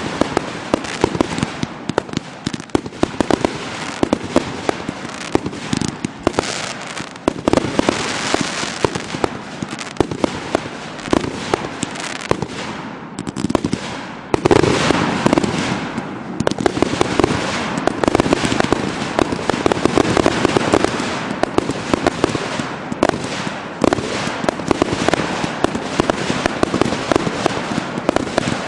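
Consumer aerial fireworks firing in quick succession: rapid pops of shells launching from their ground tubes and bursting overhead, over a constant crackle. The firing thins out briefly near the middle, then picks up louder again.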